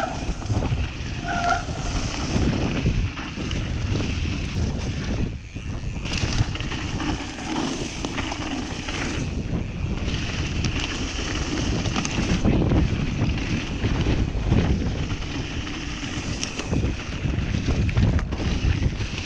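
Mountain bike riding over a snowy, rough forest trail: wind buffeting the microphone over a continuous rumble from the tyres, with frequent small knocks and rattles from the bike. A brief high squeal sounds about a second and a half in.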